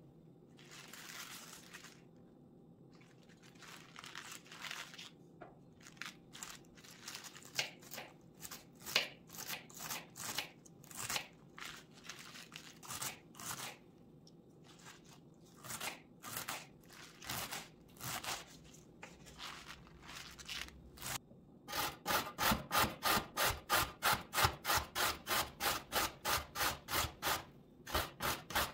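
Kitchen knife chopping fresh spinach on a wooden cutting board: irregular crisp cuts, a few a second. About 22 seconds in, a carrot starts rasping down a stainless-steel box grater in louder, even strokes, about three a second.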